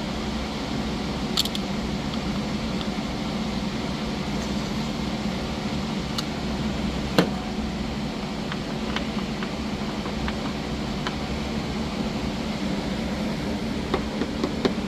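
Steady fan-like hum, with scattered light clicks and taps from tools or parts being handled, and one sharper knock about seven seconds in.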